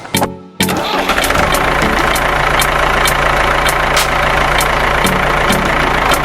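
A small engine starts about half a second in and runs steadily, with an even ticking about three times a second.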